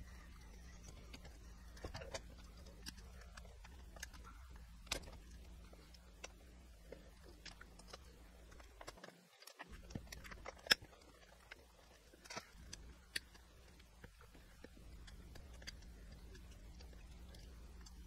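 Faint, scattered metal clicks and small scrapes as picking tools work inside an old rusty railroad padlock, the sharpest click a little past halfway. A low steady hum runs underneath and drops out briefly near the middle.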